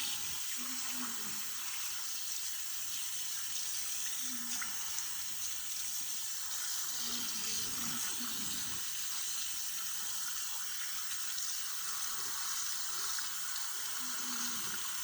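Water running steadily from a tap, rinsing a pistol slide clean.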